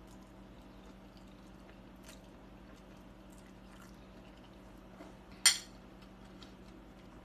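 Quiet eating noises of someone eating spaghetti: a few faint clicks over a steady low hum, and one short, loud eating sound about five and a half seconds in.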